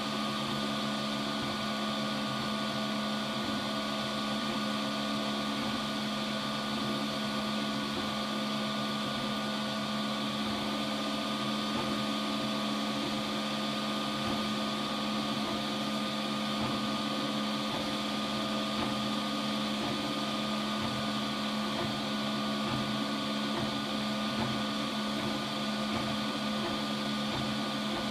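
Robo 3D R1 Plus 3D printer running a print: its motors and fans make a steady whirring hum with several steady whining tones.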